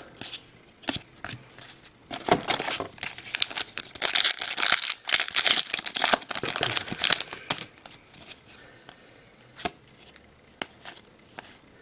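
Trading-card pack wrapper being torn open and crinkled, a dense crackling run from about two to seven seconds in, followed by a few light clicks as the cards are handled.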